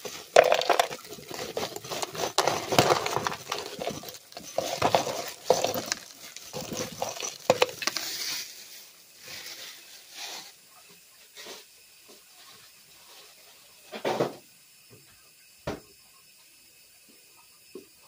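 Plastic bag of ice cubes being handled: crinkling plastic and clinking ice, busy for the first eight seconds or so, then only scattered knocks, with a louder thump about fourteen seconds in.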